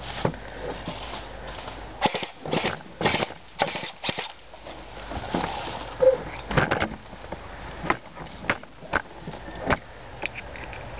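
Irregular crunching and rustling of footsteps moving through dry leaves and brush, in uneven clusters, with a few sharp knocks.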